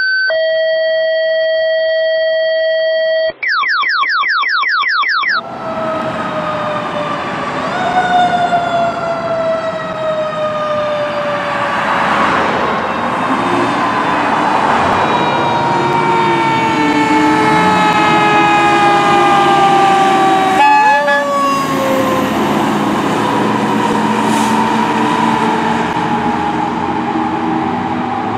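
A short electronic intro sting: steady chime tones, then a quick run of rising sweeps that cuts off suddenly. Then a fire department aerial ladder truck passes with its siren wailing in long, slow falls, revved up again sharply twice, over heavy engine and road noise.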